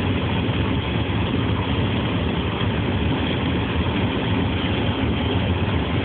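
Steady road noise and engine hum inside a car's cabin while driving on a snowy road.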